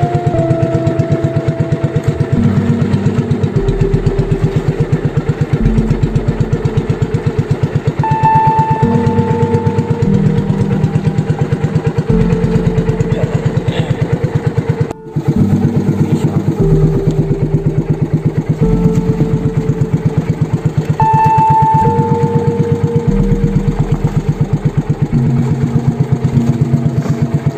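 Small outrigger boat's engine running steadily under way, with a fast, even beat. A brief dropout about halfway.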